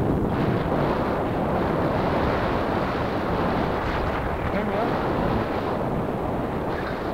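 Steady rushing noise of wind on a moving microphone and a dog sled running over snow behind a harnessed team.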